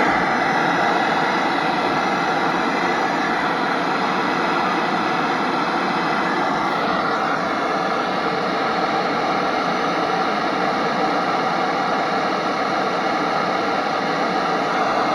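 Loud, steady rushing hiss that holds unchanged throughout.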